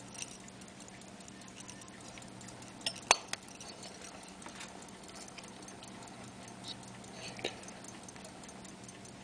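Elgin 18-size pocket watch ticking quickly and faintly, with a few sharp metallic clicks about three seconds in and again past the middle as the back of its gold-filled hunter case is worked open.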